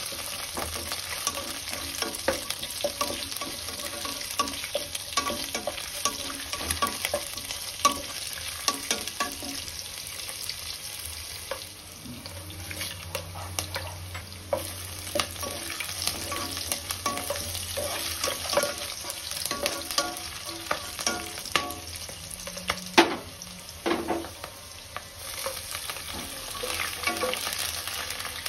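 Onion, green capsicum, garlic and dry red chillies sizzling in hot oil in a saucepan, with a steady hiss, while a wooden spatula stirs them, scraping and tapping against the pan in many short clicks and a few louder knocks.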